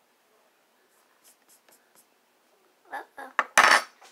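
A small metal spoon scraping and knocking against a plastic lip gloss tube while powder is worked in: a few faint ticks, then about three seconds in a quick run of short rough scrapes, the loudest one just before the end.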